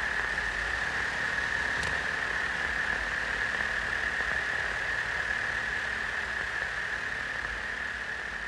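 Eurorack modular synthesizer playing electronic noise: a steady hiss with a single high held tone over it, slowly fading.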